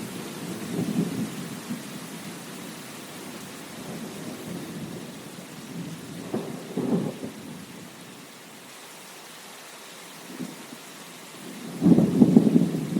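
Steady rain with rolling thunder: low rumbles swell about a second in and again around six to seven seconds, and the loudest rumble comes near the end.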